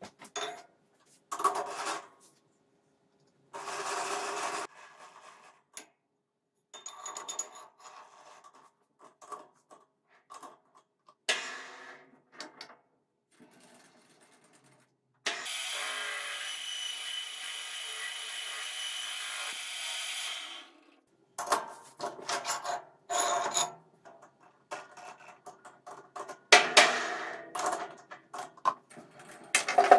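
Metal tools and lathe parts being handled at a metal-turning lathe: a string of separate clinks, scrapes and rubs as the toolpost and chuck are set up. A steady noise lasts about five seconds midway.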